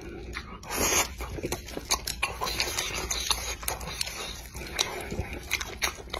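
Close-miked chewing of saucy spicy squid and noodles: a run of wet smacks and small clicks from the mouth, with a short louder noise about a second in.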